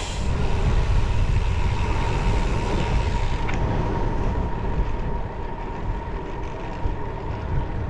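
Wind rushing over the microphone of a bike-mounted action camera and tyres rolling on the road while riding, a steady heavy rumble with a thin steady whine over it. The hiss thins out about halfway through.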